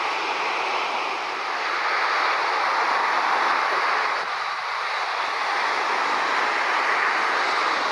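A steady rushing roar with no clear tone or rhythm: a taxiing Airbus A380's jet engines blended with road traffic noise.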